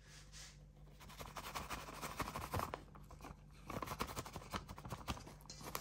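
A plastic measuring scoop scraping through rice flour in a plastic bag, with the bag crinkling. The sounds are faint, irregular and scratchy, coming in several short stretches.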